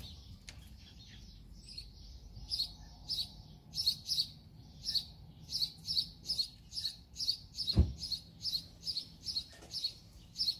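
A bird chirping: short, high chirps repeated two to three times a second from a couple of seconds in, coming a little faster toward the end. A single low thump sounds about eight seconds in.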